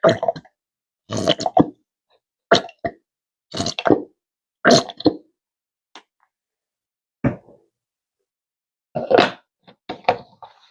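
Blue cheese being spooned into a container of oil-and-vinegar dressing: short plops and spoon knocks against the container, about one a second, then a pause and a few more near the end.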